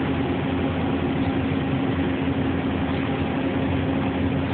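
Steady machinery hum with a constant mid-pitched drone over an even rushing noise, unchanging throughout: the background of shop machines running.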